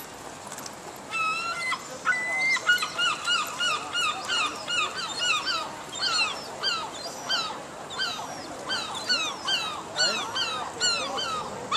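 Gull calling: two drawn-out notes, then a long run of short falling cries, about three a second.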